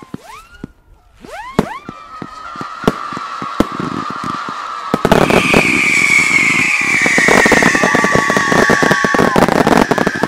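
Fireworks: a few short whistles sweeping up in pitch, then a steadier whistle. About five seconds in, a loud whistle sets in and slowly falls in pitch over dense crackling and popping, with a second, lower whistle briefly joining it.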